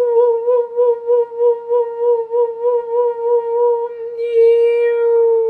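A woman's voice holding one long sung 'oo' tone, wavering in pitch and loudness about three times a second, then steadying near the end: wordless vocal toning in a light-language healing chant.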